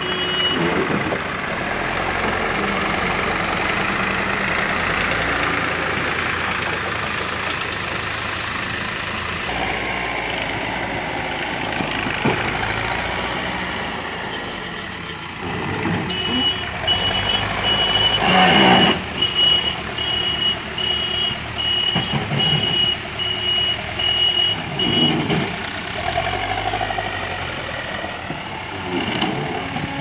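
Escorts backhoe loader's diesel engine running as the machine moves along a gravel track, with a reversing alarm beeping in quick regular pulses through the second half. One brief loud burst of noise stands out about two-thirds of the way through.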